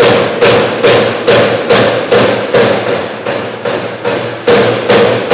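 CNC punch press punching sheet metal, a rapid series of loud metallic strikes about two a second, each with a short ringing tone. The strikes pause for about a second past the middle, then resume.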